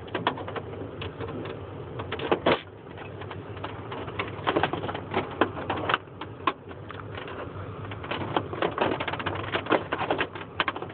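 A rapid, irregular run of small clicks and taps as a screwdriver pries at the clipped-together plastic top cover of a Dell A960 printer, working the snap clips loose.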